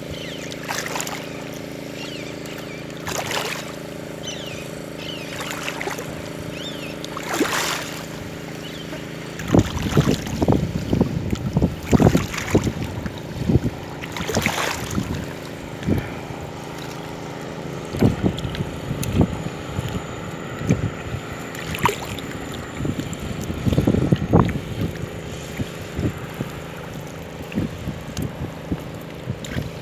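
Water splashing and sloshing as a fisherman wades waist-deep in a muddy lake and hauls in a cast net. It grows busy and irregular about a third of the way in. Before that there is a faint steady low hum with a few sharp splashes.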